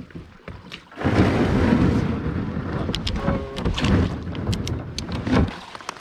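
Camera handling noise: loud rumbling and rubbing against the microphone, with scattered knocks and clicks, starting suddenly about a second in as the camera is picked up off the kayak.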